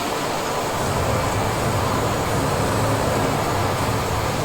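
Indoor water fountain show running: a steady rushing of water jets, with a low rumble coming up about a second in.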